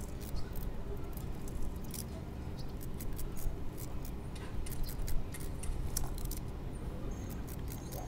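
Small kitchen knife slicing through small red onions held in the hand, a run of irregular sharp snicks, several a second.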